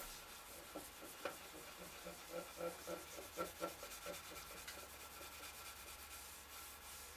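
Bare hand rubbing a beeswax and coconut oil mixture into the end grain of a warm wooden cutting board: a faint run of soft rubbing strokes, about three a second, that die away over the last few seconds.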